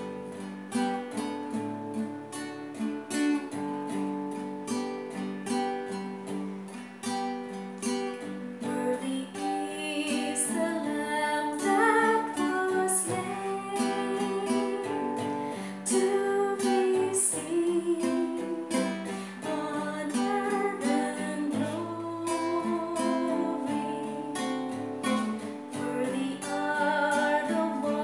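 Acoustic guitar strummed and picked in chords, with a woman singing over it through the later part.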